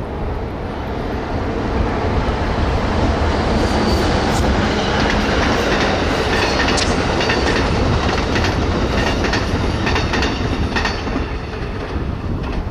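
Amtrak Pacific Surfliner passenger train, a locomotive hauling bilevel coaches, running across a trestle. A steady rumble grows louder about two seconds in, with wheels clicking over the rails through the middle of the pass.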